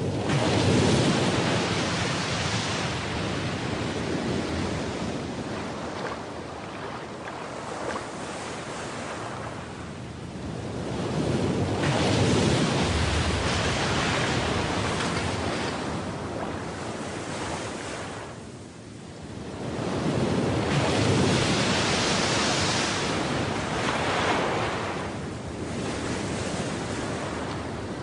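Ocean surf washing in and drawing back in slow swells, loudest near the start, around halfway, and again about three quarters through.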